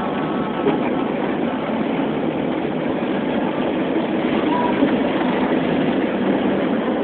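Steady running noise of a moving road vehicle, engine and tyres on the road, heard from inside the vehicle.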